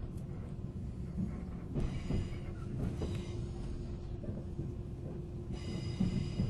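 Riding sound inside a 485-series limited-express motor car (MoHa 485-3054): a steady low rumble of the train on the rails, with a constant hum and a few scattered clicks.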